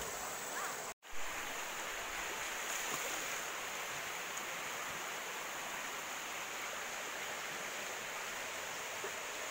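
River water flowing: a steady rush of water, with a brief dropout about a second in.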